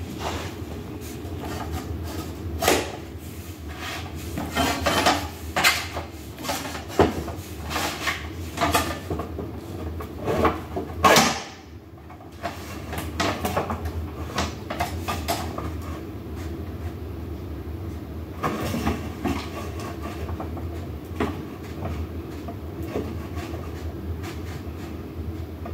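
Irregular clatter, taps and knocks of door sweep strips and their plastic packaging being handled on a floor, with a short scrape about eleven seconds in. A steady low hum runs underneath.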